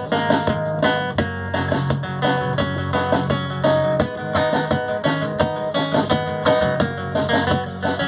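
Instrumental music: a plucked guitar melody of quick notes over a steady bass line, with no singing, leading into a song.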